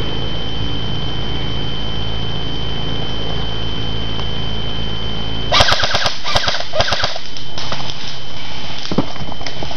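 Airsoft guns firing on full auto: a rapid rattle of shots breaks out about five and a half seconds in and goes on in several short bursts, with scattered single shots after.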